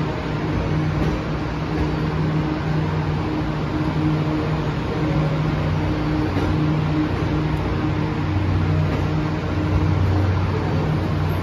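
E26-series Cassiopeia sleeper cars rolling slowly along the platform, a steady mechanical hum with a low drone that grows louder about eight seconds in.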